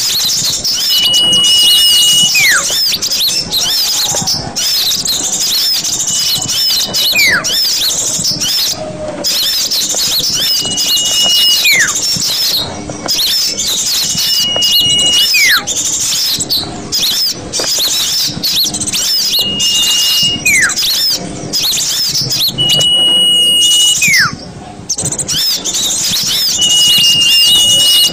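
Small-bird lure recording: a dense chatter of many small birds' high-pitched calls, over which a whistle held on one note for about a second, then a falling whistle, repeats about every four seconds.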